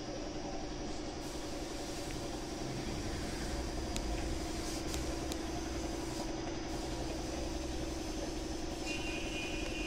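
Steady machine drone, a motor running without a break, with a few faint clicks in the middle.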